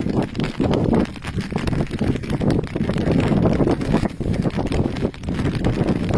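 Strong wind buffeting the microphone in uneven gusts.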